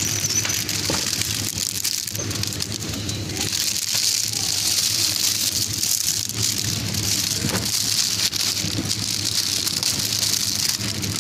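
Steady hiss with a low hum underneath and a few faint ticks: supermarket background noise.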